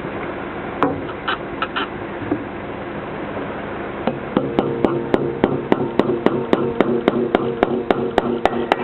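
Hammer blows on a gutter bracket being fixed in place, a few scattered knocks at first, then from about four seconds in a fast, even run of about three to four blows a second, each leaving a ringing tone. Steady hiss underneath.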